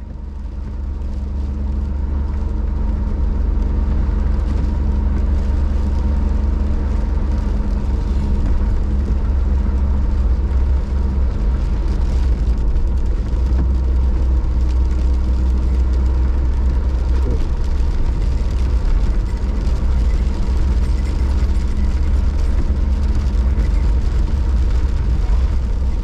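Steady engine and tyre noise of a vehicle driving on a snow-covered road, heard from inside the cabin, with a deep low rumble; it fades up from silence in the first couple of seconds and then holds steady.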